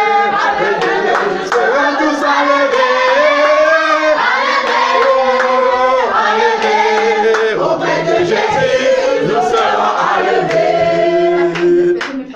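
A small group of men and women singing a Christian worship song together, with hands clapping along.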